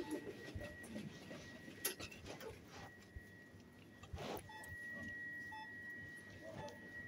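Supermarket checkout electronics: a steady high-pitched electronic tone that grows louder about halfway through, with a few short beeps from the tills. Two knocks are heard along the way.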